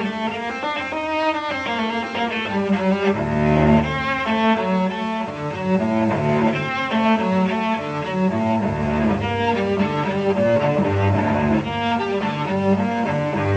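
Background music of bowed strings, with a cello prominent, playing a melody over low held notes that grow stronger a few seconds in.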